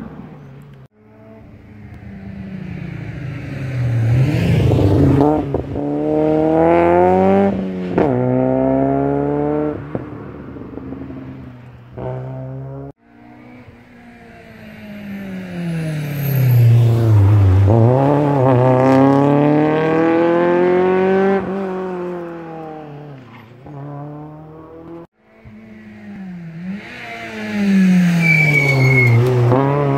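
Rally cars on a special stage passing one at a time, three passes split by abrupt cuts. Each engine revs hard, its pitch climbing and dropping at every gear change, then swoops down as the car goes by.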